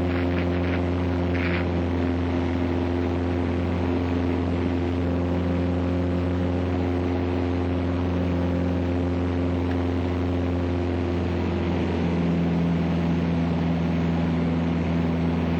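Mooney M20E's four-cylinder piston engine and propeller running steadily in a continuous drone, the note shifting slightly about twelve seconds in.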